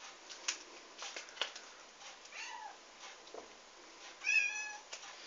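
A cat meows twice: a short, quieter meow about halfway through and a louder one of about half a second near the end. A few light clicks come earlier.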